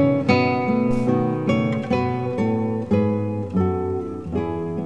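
Background music: an acoustic guitar playing a steady run of plucked notes.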